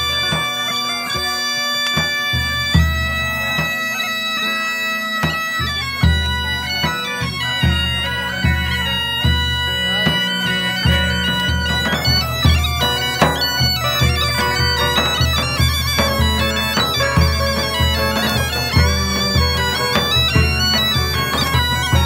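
Bagpipes playing a melody over a steady drone, accompanied by frame drums. The drumbeat is sparse for the first few seconds, then settles into a steady pulse about six seconds in.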